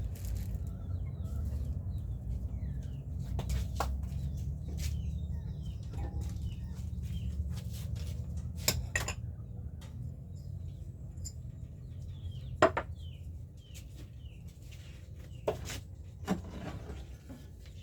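Kitchenware being handled: scattered sharp clinks and clatters of dishes and containers, a handful of them over the stretch. Birds call faintly in the background over a steady low hum.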